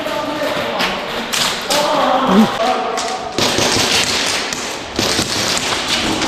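Irregular sharp taps and thuds, with faint distant voices about one to two and a half seconds in.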